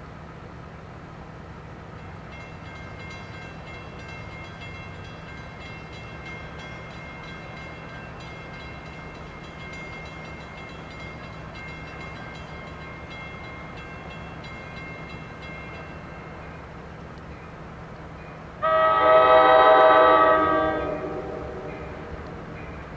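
An approaching NJ Transit commuter train sounds its air horn in one loud blast of several chords held for about two seconds, starting near the end, over a faint steady rumble of the distant train.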